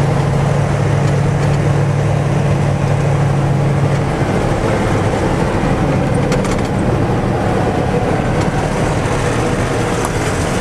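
Heavy off-road truck's engine running steadily under way, heard from inside the cab over tyre and road noise; about four seconds in the engine note changes and turns rougher.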